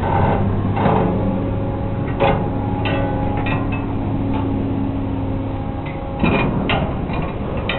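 A steady low machine hum, with a higher held tone through the middle and scattered knocks and clatter.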